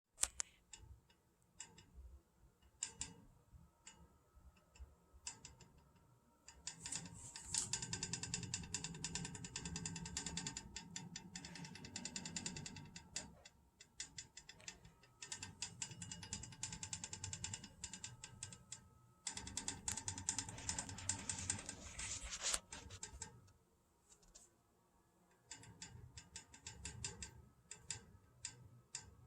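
Tapping and knocking in a house's water pipes, the sign of a failing pressure reducing valve. Scattered taps break into two long runs of fast, dense rattling, each lasting several seconds, then thin out to scattered taps again near the end.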